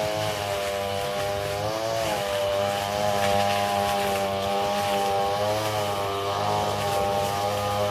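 Small petrol engine of a motorised weed cutter running steadily under load, its pitch dipping and recovering now and then as it cuts.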